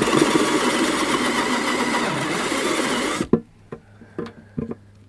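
Ryobi 18V cordless drill spinning a step bit through the plastic lid of a dry box, opening the hole one step wider. It stops abruptly a little past three seconds in, followed by a few light clicks.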